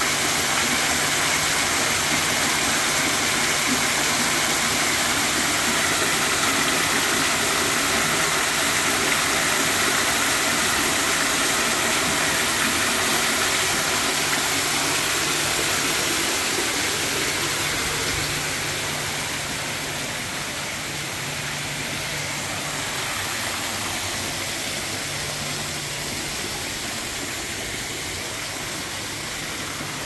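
Artificial rock-grotto waterfall, a curtain of many thin streams falling into a shallow pond, making a steady splashing hiss. It grows somewhat softer after about two-thirds of the way through.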